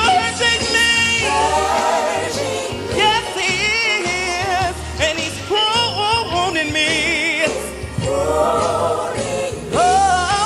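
A male gospel singer singing solo live into a microphone over a band, with long held notes, wide vibrato and fast melismatic runs.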